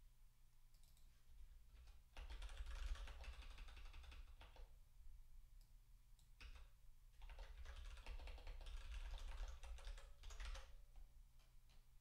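Computer keyboard typing, faint: two quick runs of keystrokes, one starting about two seconds in and another about seven seconds in, each a few seconds long, with a few single clicks between.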